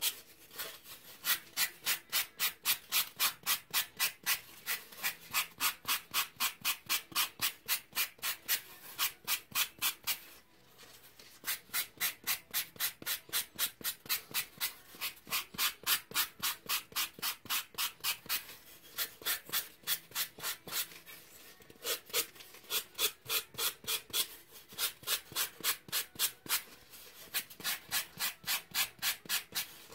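Folded sandpaper rubbed back and forth by hand over a pink ball-jointed-doll leg core: quick, even scratchy strokes about four a second, with two brief pauses.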